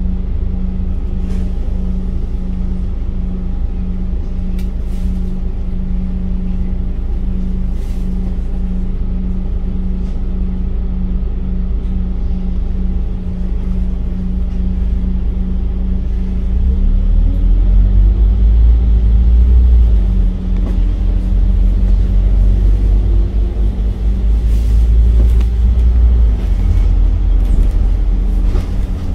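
Scania K310UD double-decker bus running, its five-cylinder diesel engine giving a steady rumble and hum. About two-thirds of the way in it pulls harder and grows louder, rising in pitch as the bus accelerates, with a brief dip around a gear change, then eases off near the end.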